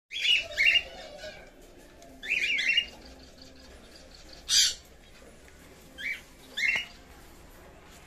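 Cockatiels squawking: about five short, shrill bursts of calls, some as two or three quick notes, with pauses between; one burst about four and a half seconds in is harsher and noisier.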